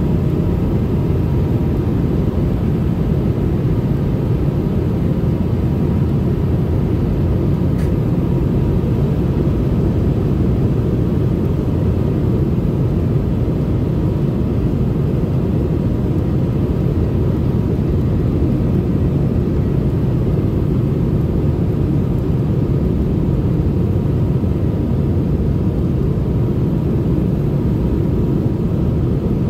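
Steady cabin rumble inside a Boeing 717-200 in flight: its rear-mounted Rolls-Royce BR715 engines and the airflow past the fuselage, with a faint steady hum on top.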